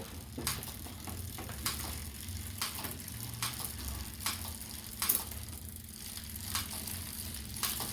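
A bicycle drivetrain being pedalled, the chain and rear cassette running, with sharp clicks about once a second. This is a test of rear derailleur shifting after the barrel adjuster has added cable tension, and the shifting now runs smoothly.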